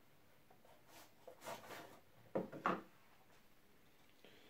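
Faint handling sounds of a power supply being taken out of its packaging: a soft rustle about a second and a half in, then two short knocks a moment apart.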